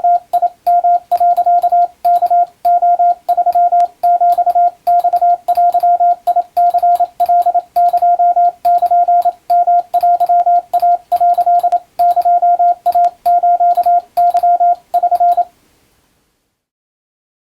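Morse code (CW) tone: a single steady beep keyed on and off in short dots and longer dashes, sending Japanese wabun telegram practice text. The keying stops about fifteen seconds in.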